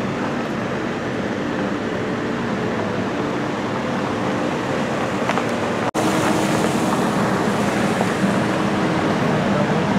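A car driving along an unpaved road, heard from inside the car: a steady engine hum under tyre and road rumble. The sound breaks off for an instant about six seconds in and comes back slightly louder.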